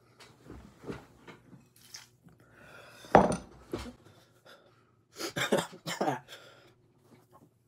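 A mouthful of water spat into a bowl, one loud splashing spurt about three seconds in, as he rinses ghost pepper heat from his mouth. A few seconds later come several quick, sharp breaths hissed through clenched teeth in pain.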